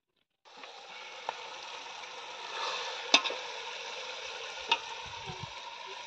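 Chicken curry sizzling in a metal pot over a wood fire, with a steady frying hiss. A spatula clacks against the pot three times, loudest about three seconds in.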